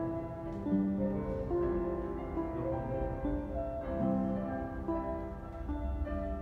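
Portable electronic keyboard played with both hands: a melody over held chords, with notes changing every half second or so.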